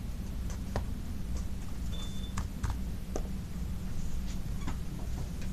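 Scattered light clicks and taps from plastic toy figures and the phone being handled, over a steady low hum, with a short high peep about two seconds in.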